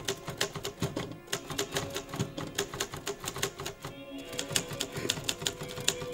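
Typewriter keys clacking in quick, irregular succession, several strikes a second, over background music with held notes.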